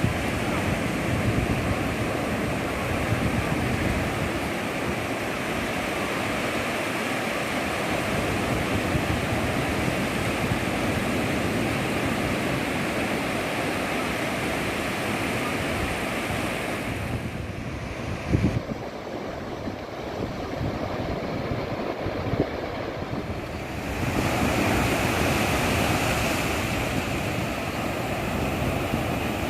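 Sea waves breaking and washing up a beach in a continuous surf. The wash eases for several seconds about two-thirds through, with one brief louder surge, then builds back up.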